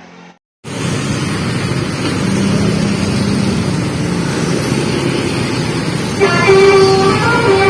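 Bus engine and road noise start abruptly, and about six seconds in a multi-note telolet (basuri) bus horn begins playing a tune over them, louder than the engine.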